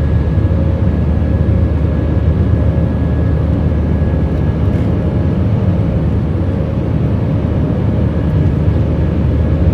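Jet airliner's turbofan engines and airflow heard inside the cabin during the climb after takeoff: a steady, loud, deep rumble with a faint high steady tone above it.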